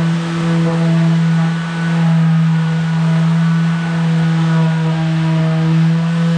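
Handheld power sander running steadily against a plywood desk top: a constant motor hum with a gritty hiss over it, the loudness swelling and dipping slightly as it is worked across the board.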